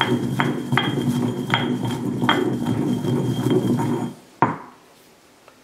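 Stone pestle grinding cinnamon stick, cloves and black pepper to a powder in a granite molcajete: a steady scraping with irregular clicks of stone on stone. The grinding stops about four seconds in, followed by a single knock.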